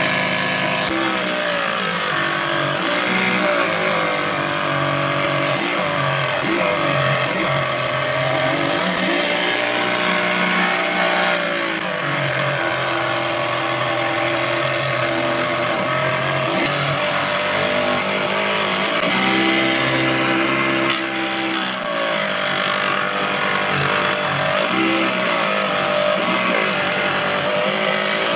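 Small homemade table saw cutting grey PVC into strips. Its small DC motor whines at high speed, and the pitch sags each time the blade bites into the plastic, then recovers between passes.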